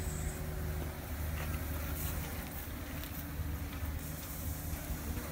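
A steady low mechanical rumble with a faint, steady hum above it.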